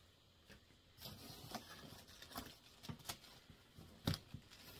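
Paper cross-stitch charts and their packaging being handled and sorted, with faint rustling and several small clicks and taps; the sharpest click comes about four seconds in.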